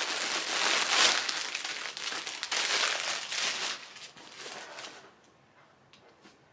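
Packaging crinkling and rustling as items are handled and lifted out of a box, loudest about a second in, then dying down after about four seconds to a few faint rustles.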